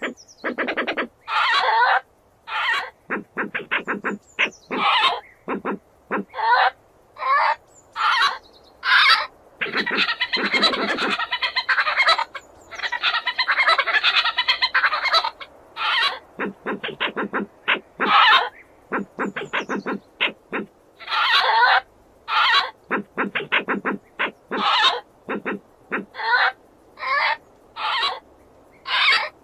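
Badger calls: runs of short, rapid cries broken by brief pauses, with a longer unbroken stretch of calling about ten to fifteen seconds in.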